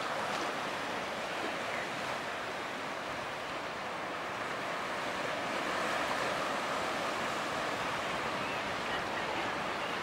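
Steady rush and splash of water from the bow wave and hull wash of a passing Great Lakes bulk freighter (laker) moving close by through the water.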